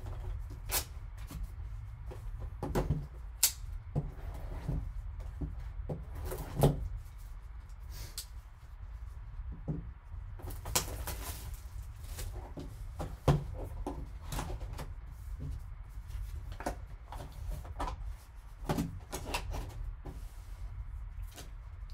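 A cardboard trading-card hobby box being handled and opened by gloved hands: scattered knocks, taps and scrapes of cardboard, with a longer scraping, sliding stretch about halfway through. A steady low hum runs underneath.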